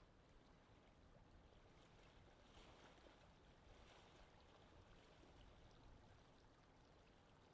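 Faint wind ambience: a soft, steady rush of noise that swells a little a few times around the middle.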